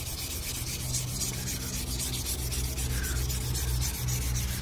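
600-grit sandpaper rubbed by hand over the bare aluminium of an alloy wheel's polished barrel, a scratchy hiss in quick, even back-and-forth strokes, several a second, over a steady low hum. It is the coarse first pass that takes off the weathered, dulled surface to bring the shine back.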